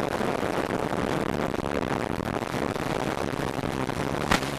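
F450 quadcopter's electric motors and propellers running steadily in flight: a dense buzz over a faint low hum, with a short click about four seconds in.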